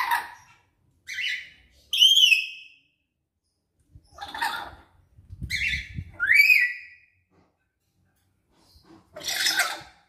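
Caged lories (nuri parrots) calling loudly in separate calls with pauses between: some are whistled calls that rise and fall in pitch, others are harsh, rough screeches, about six in all.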